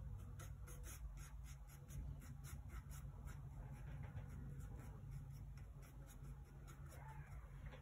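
A flat paintbrush scrubbing oil paint onto a gessoed panel in short, quick strokes, about four a second, dying away near the end.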